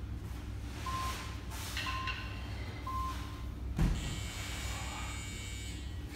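Steady hum of a gym hall with three short electronic beeps about a second apart, then a single dull thud just under four seconds in, as of a weight set down on a floor mat. After the thud, faint steady high tones carry on over the hum.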